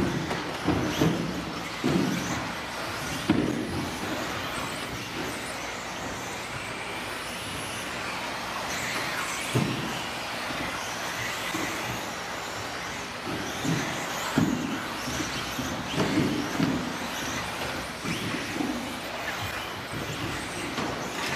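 Several 2WD 17.5 electric RC buggies racing, their brushless motors and tyres making a steady whir with some rising and falling whine. Short thumps come at irregular moments from cars landing jumps and hitting the track.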